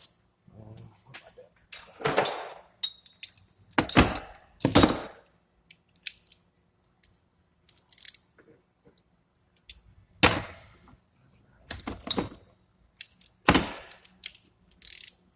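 Metal bolts, brackets and hand tools clinking and clattering as they are handled and set in place, a handful of separate sharp clanks with quiet gaps between.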